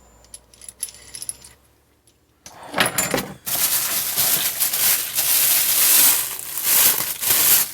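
Packaging rustling and metal parts clinking as a microphone boom arm is pulled out of its box. A few faint clicks come first, then loud, continuous rustling starts about two and a half seconds in.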